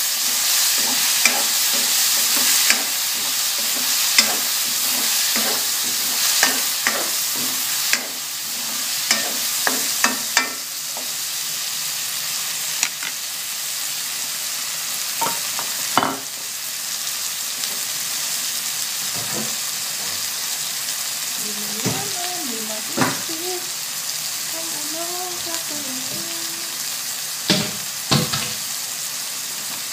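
Vegetables sizzling in an aluminium wok over a gas burner, with a silicone ladle scraping and tapping against the pan in quick succession for about the first ten seconds. After that comes steadier sizzling with a few single knocks.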